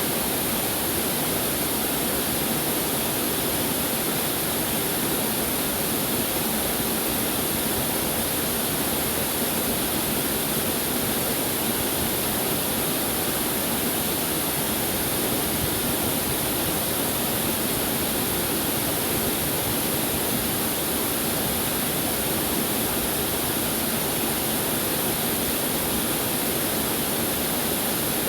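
Waterfall, a steady rush of falling water with no change in level.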